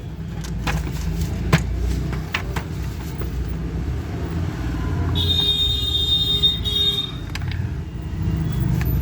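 A high-pitched electronic tone sounds for about two seconds midway, over a steady low rumble, with a few sharp clicks in the first three seconds.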